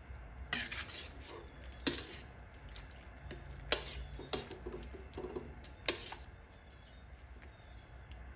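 A metal ladle stirring soup in a wok, knocking against the pan about five times with sharp clinks and soft liquid stirring between, over a low steady hum.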